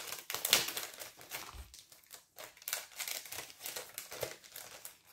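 Paper and card rustling and crinkling in quick irregular bursts, loudest near the start, as a handmade card is slid back into its paper envelope.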